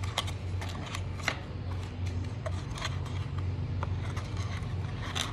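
A stack of Pokémon trading cards being handled and flipped through by hand: scattered light clicks and rustles of the cards, over a steady low hum.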